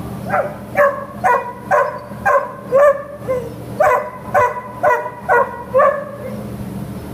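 A dog barking repeatedly in a fast, even series, about two barks a second, a dozen or so in all. Each bark is short and fairly high-pitched. A steady low hum runs underneath.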